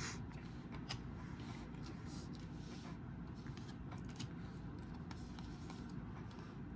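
Faint ticks and light scrapes of trading cards being handled and flipped through one by one, over a steady low background noise.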